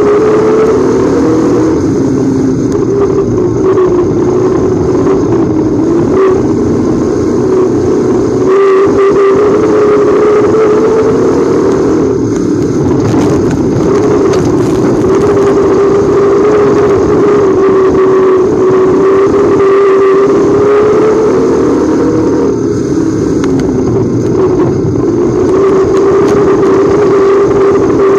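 Pure stock race cars' engines running hard around a dirt oval, a loud steady engine note whose pitch rises and falls slightly as the cars circle.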